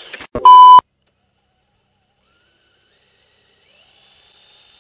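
A short, very loud electronic beep about half a second in, then quiet. From about two seconds in comes a faint high whine from the RC car's brushless motor spinning the wheels on the rollers, stepping up in pitch a little before four seconds and then holding steady.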